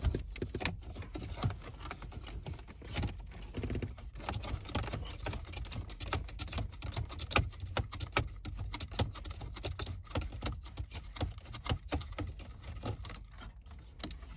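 Hand screwdriver backing out the screws that hold a car radio into the plastic dashboard, with irregular small clicks and scrapes of the tool and fingers on the plastic trim.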